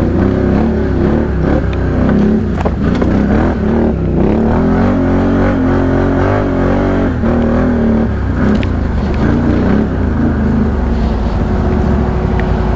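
Can-Am Outlander ATV engine running at low speed on a dirt trail, its pitch rising and falling with the throttle, over a steady low rumble with scattered clicks and knocks.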